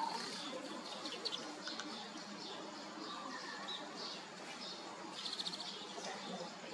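Small birds chirping: scattered short, high notes, with a quick run of them about five seconds in, over a steady background noise.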